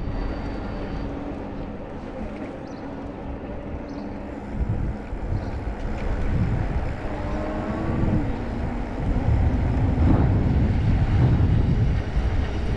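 Wind rumbling on the camera microphone while riding a bicycle along a street. It grows louder about halfway through and is strongest near the end.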